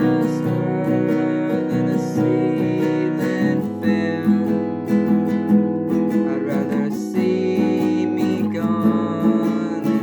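Acoustic guitar strummed in a steady rhythm, moving to a new chord about a third of the way through.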